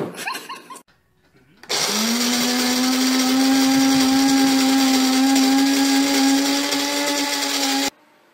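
Electric blender motor switched on, spinning up to speed within a fraction of a second and then running at a steady pitch for about six seconds before it is cut off abruptly.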